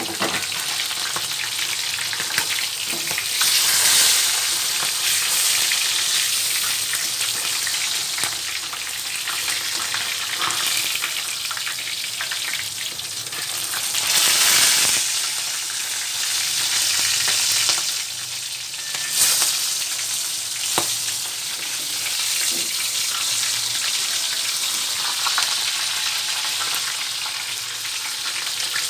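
Yellowfin tuna head and steaks frying in hot oil in a wok: a steady sizzle that swells louder a few times, with a couple of sharp pops in the second half.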